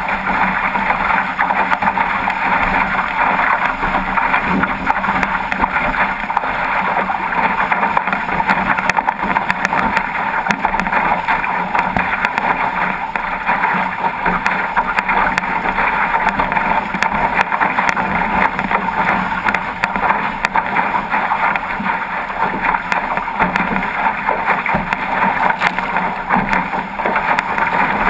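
Water rushing and splashing along the hull of a 505 racing dinghy sailing fast through chop, mixed with wind buffeting the microphone. A loud, steady wash of noise with many small slaps of spray throughout.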